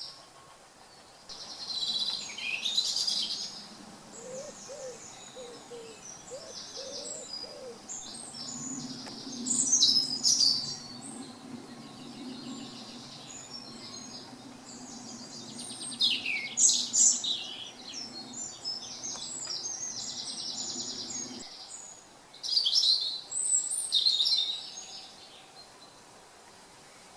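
Woodland songbirds singing and calling, with louder bursts of song several times. A short run of low hooting notes comes a few seconds in. A steady low hum starts about nine seconds in and cuts off suddenly a little after twenty seconds.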